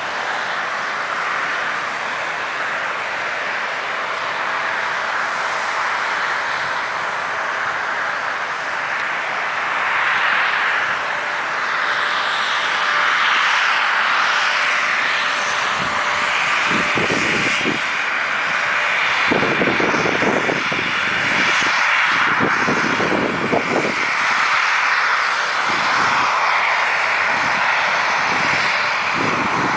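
Snowmaking guns running with a loud, steady hiss, like a distant jet engine. In the second half, low rumbling hits the microphone now and then.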